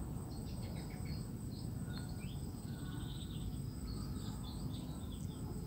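Outdoor ambience of insects: a steady high-pitched drone with scattered faint chirps over a low, even rumble.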